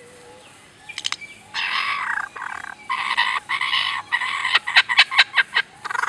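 Lyrebird mimicking laser-gun sound effects. After a quiet first second come several harsh, rasping bursts, then near the end a rapid run of short sweeping 'pew' notes.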